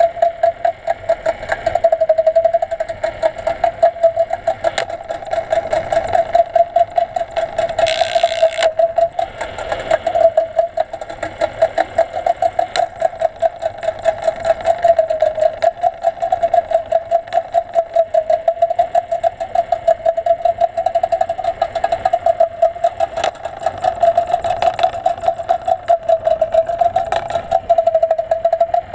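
Steady motor hum heard underwater, pulsing quickly and evenly, with a short burst of hiss about eight seconds in.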